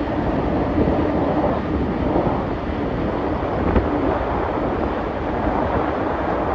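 Steady wind and running noise aboard a moving passenger ferry, with wind buffeting the microphone.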